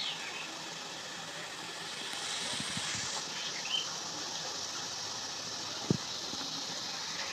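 Besan batter dripping through a perforated ladle into medium-hot oil, the drops sizzling and bubbling steadily as they fry into boondi. One sharp click about six seconds in.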